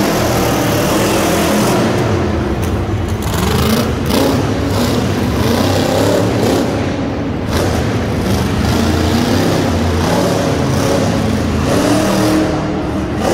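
Dirt Crew Racing monster truck's engine revving hard through a freestyle run, the pitch rising and falling again and again as the throttle is opened and eased off.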